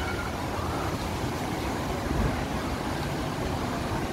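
Steady rushing and splashing of water jets spraying up at a water ride.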